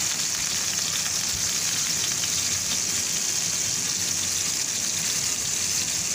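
Two whole spice-coated tilapia frying in hot oil in a frying pan over medium heat, giving a steady sizzling hiss.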